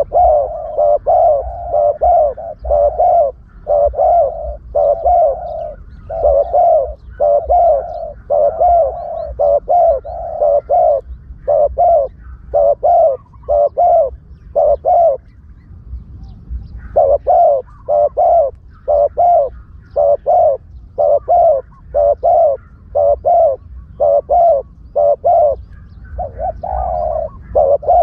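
Spotted doves cooing: a rapid run of coos repeated over and over, with a short break about halfway through. It is a decoy call used to lure spotted doves.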